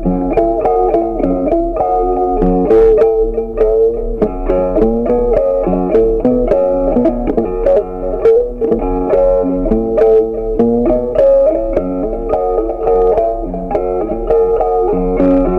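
Background music: a steady stream of plucked guitar notes.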